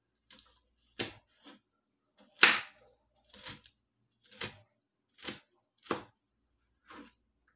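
Kitchen knife cutting green pepper on a plastic cutting board: sharp knocks of the blade on the board at about one a second, one about two and a half seconds in louder than the rest.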